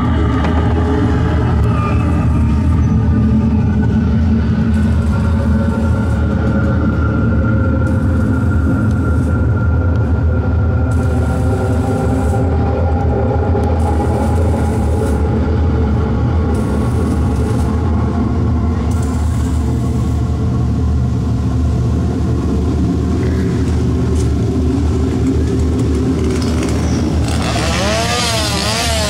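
An engine running steadily with a low rumble. Near the end a pitched sound that warbles rapidly up and down joins it.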